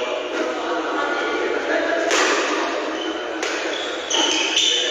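Badminton doubles rally: rackets striking the shuttlecock with a couple of sharp hits, and sneakers squeaking on the court floor, in an echoing hall with voices in the background.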